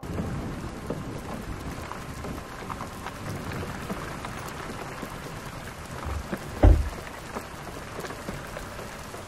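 Steady hiss and patter of heavy rain, starting abruptly, with one short, deep boom about two-thirds of the way through.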